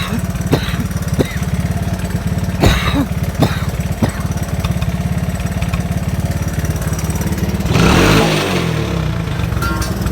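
Small engine idling steadily, with a few sharp clicks in the first few seconds and a louder rush of noise about eight seconds in.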